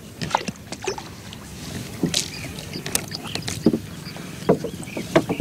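Wooden fishing boat worked with long poles among lake reeds: irregular knocks of the poles and splashes of water, a dozen or so scattered strokes.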